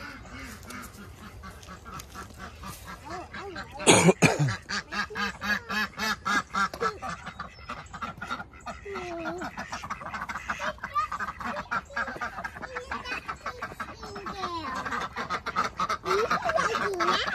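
Domestic ducks quacking, many short calls in quick succession overlapping, growing louder toward the end. A loud sharp sound stands out about four seconds in.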